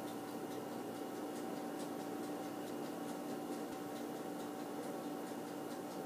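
Kitchen room tone: a steady appliance hum with faint, irregular ticking.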